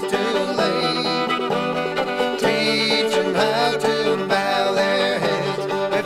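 A fiddle and a banjo playing a bluegrass-style country tune together, the fiddle sliding between notes over the banjo's picking.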